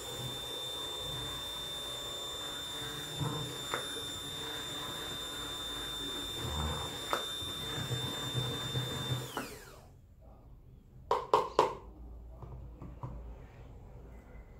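Electric stick blender running steadily in a plastic jug of liquid conditioner: a high motor whine with a few light clicks. About nine seconds in it is switched off and winds down. Shortly after come three or four quick, sharp knocks.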